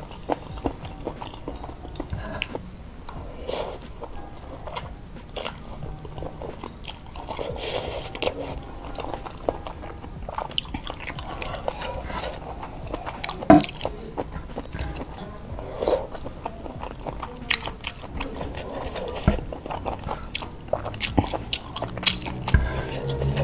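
Close-miked eating of boiled noodle soup: noodles slurped in, then chewed with many wet mouth clicks and smacks, and soft crunches from the vegetables.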